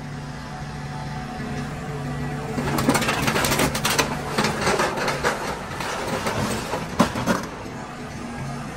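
Hydraulic excavator's diesel engine running and working harder over the first couple of seconds, then crunching, crackling sheet metal from about three seconds in as the grapple crushes a pickup truck's cab, with one sharp bang about seven seconds in.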